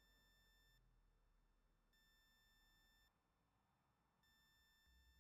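Near silence, with a very faint high electronic whine that comes and goes, about a second on and a second off.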